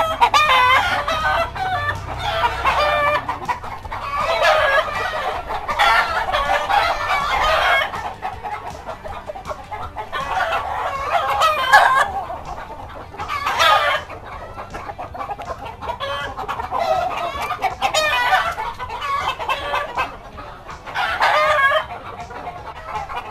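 Chickens in backyard pens: several roosters crowing again and again, their calls overlapping, with clucking in between.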